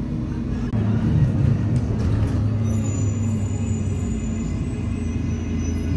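City bus engine and road noise heard from inside the passenger cabin: a steady low drone that gets louder about a second in.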